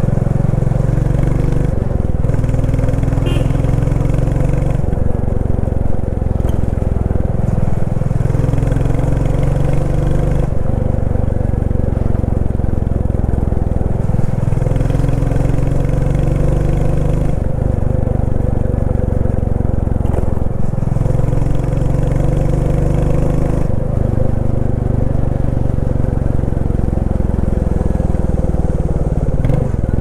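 Royal Enfield Classic 350's single-cylinder engine and exhaust thumping while riding. The pitch climbs in several pulls and drops back between them.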